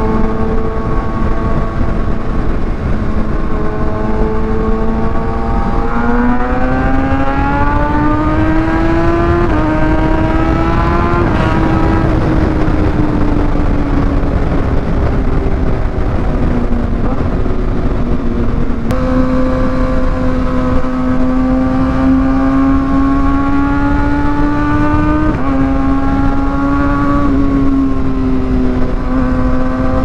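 Kawasaki ZX6R's inline-four engine through an Austin Racing GP1R aftermarket exhaust while riding: the loud exhaust note climbs with the throttle, drops back in sudden steps at gear changes, and holds a steady pitch for a long stretch in the second half, over a low wind rumble.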